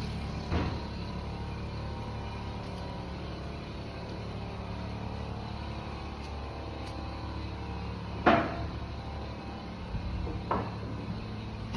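Construction noise: an engine running with a steady low hum, broken by a few sharp bangs, the loudest about eight seconds in.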